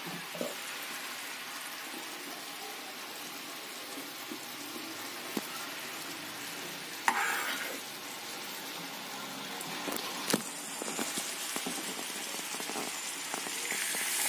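Sugar syrup boiling in a pan on a gas stove with a steady bubbling sizzle, and a steel spoon clinking against the pan a few times as it is stirred. Near the end the sizzle grows louder as beetroot juice is poured into the hot syrup.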